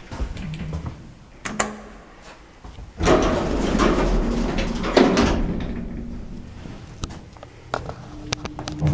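Lift doors sliding, with a few clicks and then a noisy sliding run that starts about three seconds in and fades out over the next few seconds.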